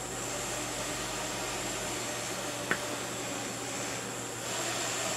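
Small fischertechnik electric motor spinning a propeller, a steady whir that grows a little louder about four and a half seconds in, with one short click near the middle. The propeller runs at variable speed despite a constant speed set in the program.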